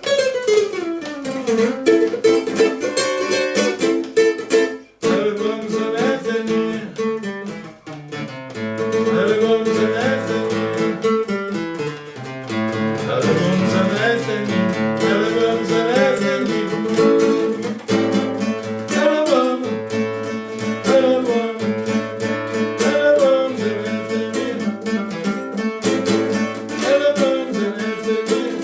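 Music: a plucked string instrument playing, with a brief break about five seconds in.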